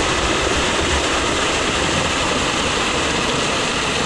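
Steady rushing of river water flowing around an inflatable raft on a whitewater river.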